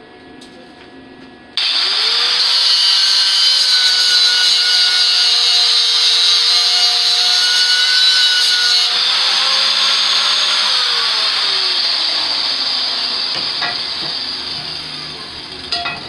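Angle grinder switched on about a second and a half in, its motor whining steadily as it works steel angle iron, then switched off and spinning down in a slowly falling whine over the last few seconds.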